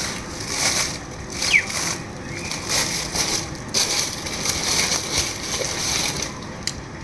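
Packaging being handled: rustling and crinkling in short irregular bursts, with a brief rising chirp about one and a half seconds in.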